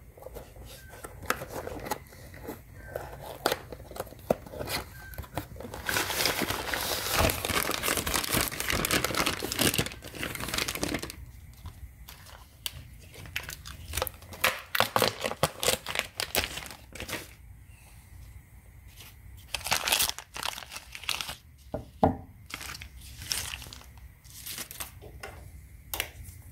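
Plastic wrap crinkling and tearing as a new steel motorcycle sprocket is unwrapped, heaviest for several seconds near the middle, with scattered clicks and rustles around it.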